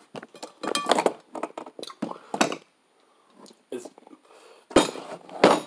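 Close-up eating sounds: a metal fork clicking and scraping in a bowl of pasta, with chewing and mouth noises, a string of short sharp clicks with two louder ones near the end.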